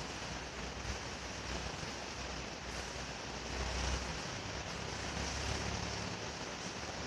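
National FMY159 industrial ceiling fan running, a steady rush of moving air with a low rumble that swells and fades.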